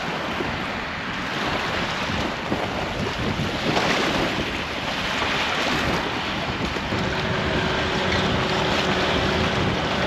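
Lake waves washing in the shallows and splashing around a paddleboard as it is towed through the surf, with wind buffeting the microphone; a steady, unbroken rush of water and wind.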